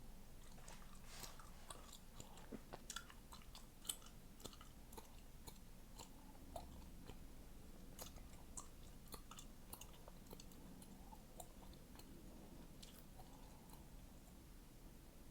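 Gum being chewed close to the microphone: soft, irregular wet clicks and small pops, several a second, with a louder pop about four seconds in.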